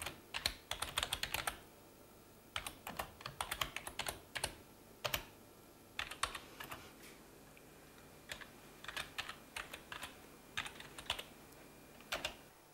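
Typing on a computer keyboard: quick runs of keystrokes in short bursts, with brief pauses between them.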